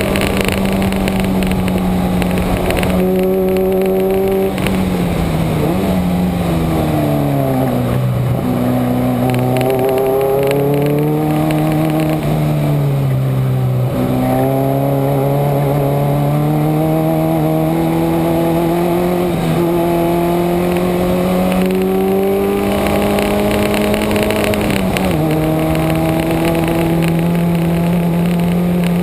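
Subaru's flat-four engine at speed on a racetrack, the engine note holding high, falling away as it slows for corners, climbing again under acceleration, and dropping suddenly about 25 seconds in at an upshift. Wind rushes steadily over the microphone.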